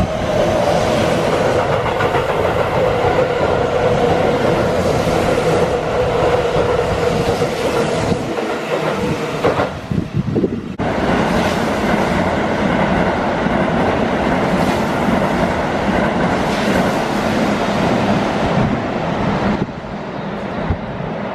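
Keihan 3000 series electric trains passing through stations at speed without stopping: a loud rolling rumble with wheels clattering over the rails, and a steady tone that slowly falls during the first pass. The sound breaks off about ten seconds in, a second train's pass follows, and it eases off a little near the end.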